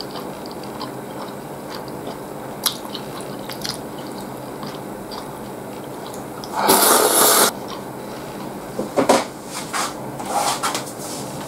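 A person eating ramen: a loud slurp of noodles lasting most of a second about seven seconds in, with a few shorter slurps near the end and soft chewing and mouth clicks in between.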